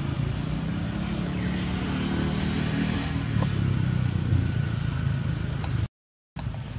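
Steady low rumble of a motor vehicle engine running nearby, with a faint steady hum in it. The sound cuts out completely for about half a second near the end.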